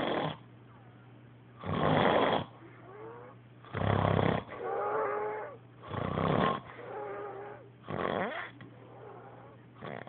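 A man snoring in his sleep: a loud, harsh snore about every two seconds, with a softer whistling breath between some of the snores.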